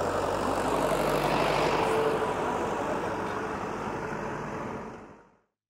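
Steady low rumble with a hiss over it, swelling a little and then fading out to silence about five seconds in.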